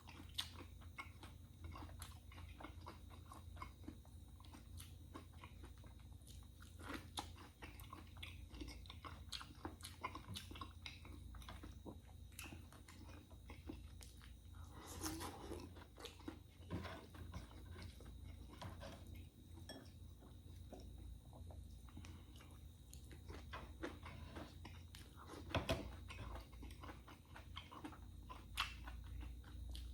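Close-miked chewing and biting of food, with crisp crunches and many small mouth clicks, and a louder bite about fifteen seconds in and again near twenty-five seconds.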